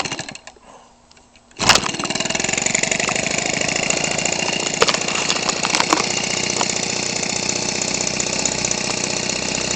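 Weedeater Featherlite 15cc two-stroke engine, converted for a model aircraft and running through a gutted muffler with a welded-on pipe, is hand-started: a few clicks, then it fires suddenly a little under two seconds in and runs steadily, driving its 15x6 propeller.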